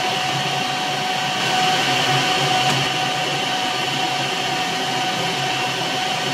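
A metalworking machine tool running at a steady speed: an even motor whine with a held tone, unchanging in level.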